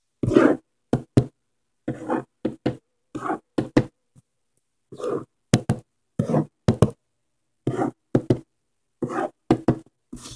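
A pen writing on a sheet of paper: many short strokes in quick, irregular bunches with brief pauses between.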